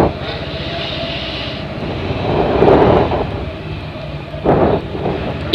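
Bajaj Avenger 220's single-cylinder engine running as the motorcycle moves off at low speed, the revs rising briefly about halfway through.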